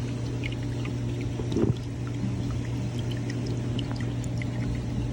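A small motor running steadily with a low, even hum, and a brief louder noise about a second and a half in.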